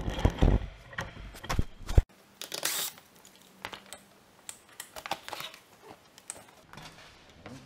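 Clattering knocks in the first two seconds, then scattered clicks and rustles of a car's plastic engine undertray panel and its fasteners being worked loose by hand.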